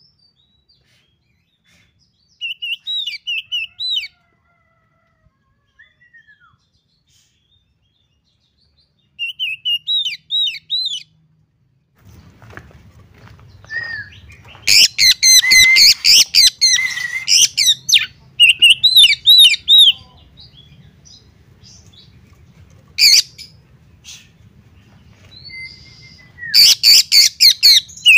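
Oriental magpie-robin singing in separate bursts: short whistled phrases at first, then from about halfway much louder, denser song of rapid repeated notes mixed with whistles, coming in several bursts.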